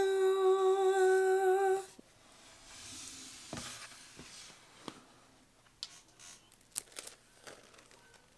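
A woman's voice holds one sung "aah" note for about two seconds, mimicking the sound she feels the unboxing should make. After it come faint handling rustles and a few light taps and clicks.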